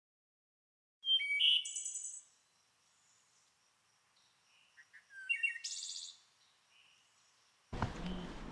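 A small songbird singing two short phrases of high chirps and trills, a few seconds apart. Near the end, footsteps start.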